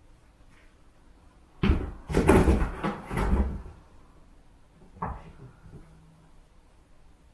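A box being knocked and scrabbled at by playing kittens: a sharp knock, then about a second and a half of rapid bumping and scratching, and one more knock a couple of seconds later.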